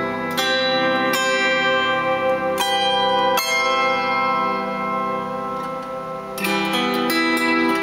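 Therapy harp tuned to the 444 Hz "Majestic" tuning, its strings plucked by hand. A few single notes are struck and left to ring together as they fade, then a quicker run of plucked notes starts about six and a half seconds in.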